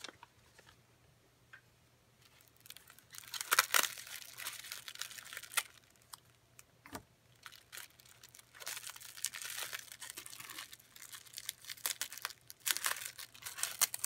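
Holographic foil gift wrapping crinkling as a wrapped package is picked up and handled, in three spells of crackling with a few sharp clicks, starting a few seconds in.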